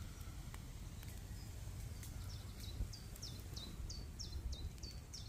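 A small songbird repeating a short, high, falling chirp about twice a second, starting about two seconds in, over a faint low rumble.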